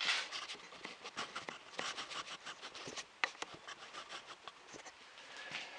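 Faint scratching and rustling with scattered light clicks of small handling noises, and one sharper click a little past three seconds in.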